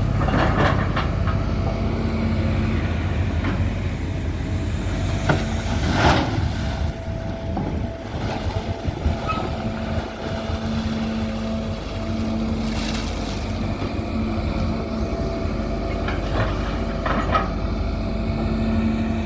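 Excavator's diesel engine running steadily, with a few short knocks and clatters about six, thirteen and seventeen seconds in.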